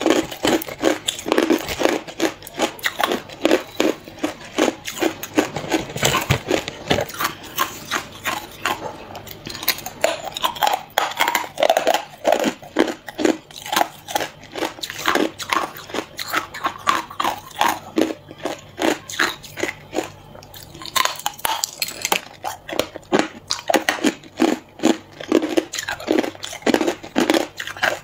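Hard clear ice bitten and crunched between the teeth: a dense run of sharp cracks and crunches, several a second, with a brief lull about two-thirds through.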